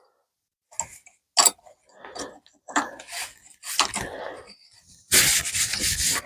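Small clicks and metallic rattles of staples being loaded into a pneumatic stapler's magazine. Near the end comes a loud hiss lasting about a second.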